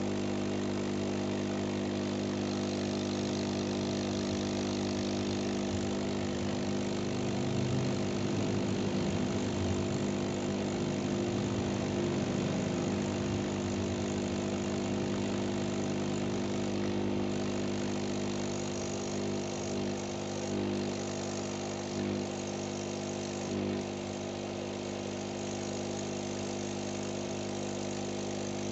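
Steady hum of a small motor running, made of several held tones, wavering slightly about a third of the way in and dipping briefly a few times near the end.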